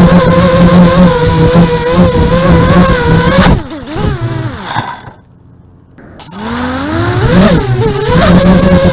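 FPV racing quadcopter's brushless motors and propellers whining steadily, heard from the onboard camera. About three and a half seconds in, the whine wobbles and falls as the quad tips into the grass, the motors stop for about a second, then start again suddenly with a rising whine and run steadily.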